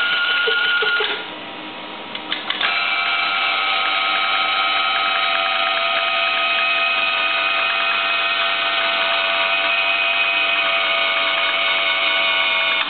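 Noran Voyager EDS X-ray detector giving off an abnormal noise: a steady whine of several high tones. It drops away about a second in, a few clicks follow, and it comes back at full strength just under three seconds in.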